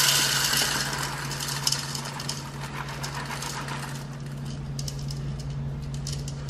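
Whole coffee beans poured from a bag into an espresso machine's bean hopper: a rushing rattle, loudest at first, that tails off and stops about four seconds in, followed by a few scattered light clicks of single beans falling. A low steady hum runs underneath.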